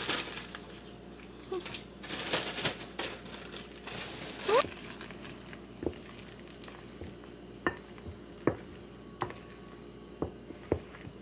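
Spoon or utensil tapping and scraping against the pan while stirring pancake batter: short sharp irregular taps, roughly one a second in the second half, after a short rising squeak about four and a half seconds in.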